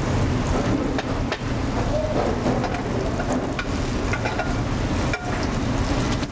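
Leek rounds sizzling in butter and oil in a stainless steel sauté pan over a gas flame, stirred with a wooden spoon, with a few sharp knocks of spoon on pan.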